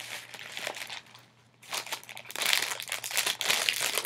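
Packing material in a cardboard box crinkling and rustling as it is handled and pulled out, with a short lull about a second in, then louder, denser crinkling through the second half.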